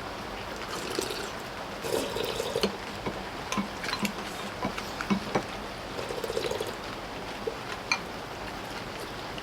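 Eating sounds over steady rain: spoons and chopsticks click against bowls, with a couple of short slurps of soup broth.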